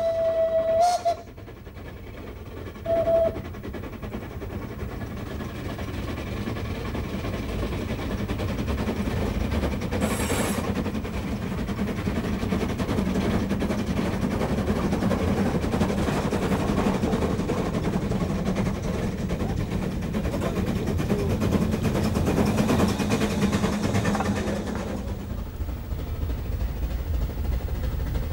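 Steam rack-railway locomotive: its whistle ends about a second in, and one short toot follows a couple of seconds later. Then the locomotive works uphill pushing its coach, a steady running clatter that grows louder as it nears and fades near the end.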